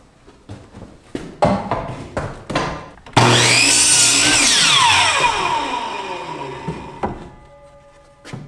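Wood knocking as a 2x4 is set on the saw bench, then a Hitachi electric miter saw starts abruptly about three seconds in and cuts through the board. After the trigger is released the blade winds down with a long falling whine, and a couple of wooden knocks follow near the end.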